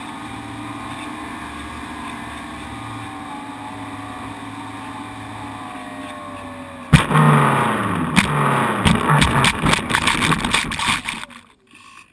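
Great Planes Piper J-3 Cub electric RC plane, heard from a camera on the airframe: the motor and propeller whine steadily, then about seven seconds in the plane hits the grass with a loud bump. Rattling and knocking follow as it bounces along and the motor's whine winds down, until everything stops about a second before the end.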